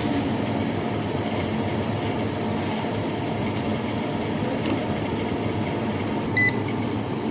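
Steady hum of an electric kettle heating water to a set temperature, with one short electronic beep from it about six and a half seconds in.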